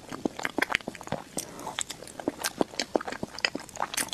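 A person chewing a mouthful of dessert close to the microphone: a quick, irregular run of wet clicks and mouth smacks, several a second.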